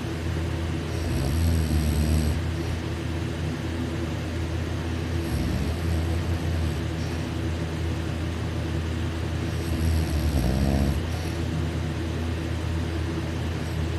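A person snoring deeply and loudly with the mouth open, the soft palate fluttering. Three long snores come about four seconds apart over a steady low rumble.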